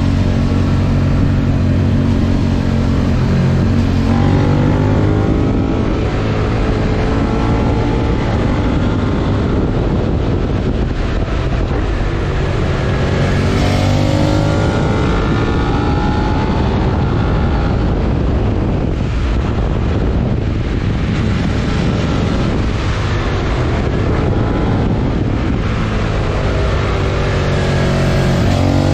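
Suzuki SV650X's 90-degree V-twin through a Yoshimura R77 exhaust, ridden downhill with a Sigma slip clutch fitted: the engine note falls and rises several times as the bike engine-brakes and shifts, over a steady rush of wind.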